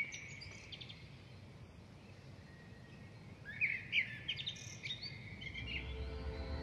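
Small birds chirping: a few chirps at the start and a flurry of calls about three and a half seconds in. Soft music fades in near the end.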